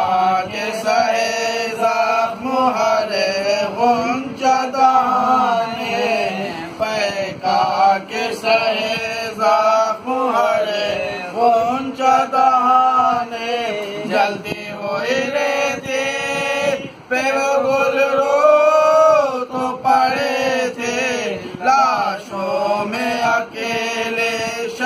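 Several men chanting an Urdu marsiya, a Muharram elegy, together in long drawn-out, wavering melodic lines, with no instruments.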